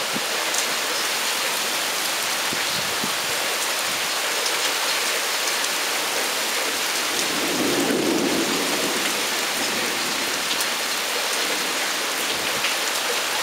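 Heavy rain falling steadily in a thunderstorm, with a low rumble of thunder swelling and fading a little past the middle.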